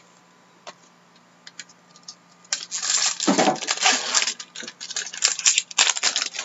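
Trading card packs being opened and cards handled: a few light clicks, then from about two and a half seconds in a run of crinkling and sharp clicking as a foil pack wrapper is torn open and the cards slide out.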